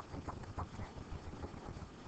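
Faint, evenly spaced ticking at about three ticks a second, fading out after about half a second, over low background noise.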